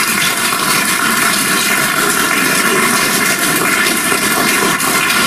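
Audience applauding steadily, a hall full of people clapping in approval of the proposed board members' re-election.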